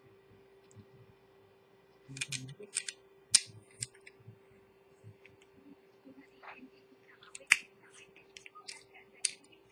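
Small tools and parts clicking and tapping on a watchmaker's workbench, about a dozen sharp clicks in two clusters, the loudest about a third of the way in and a single sharp one about three-quarters through. A steady low hum runs underneath.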